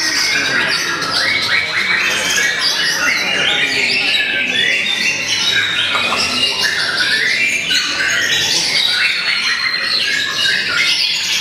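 White-rumped shama (murai batu) singing a loud, continuous run of rapid, varied phrases, with other contest birds singing over it.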